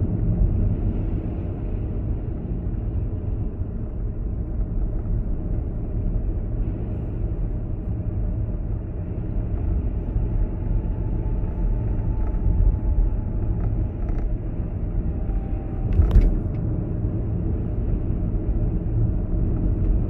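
Steady low rumble of a car driving along a road, with one sharp click about 16 seconds in.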